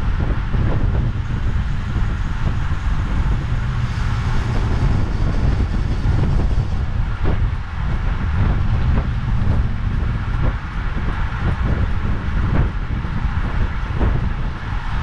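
Steady rushing rumble of wind buffeting the microphone of a camera riding along on a road bike at about 24 mph, mixed with tyre noise on asphalt.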